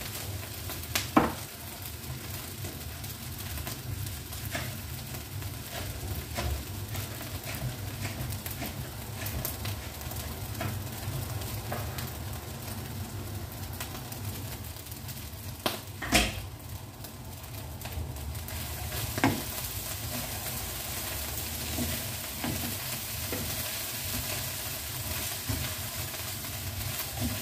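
Egg fried rice sizzling in a wok as it is stir-fried with a wooden spatula, with a few sharp knocks against the pan, the loudest about a second in and again a little past halfway.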